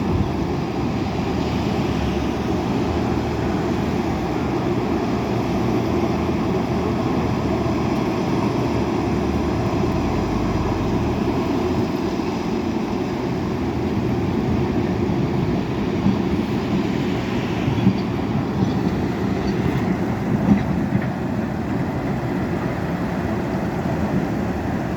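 Heavy earthmoving machinery running steadily: the diesel engines of a crawler dozer and backhoe loaders. A few sharp knocks come in the second half.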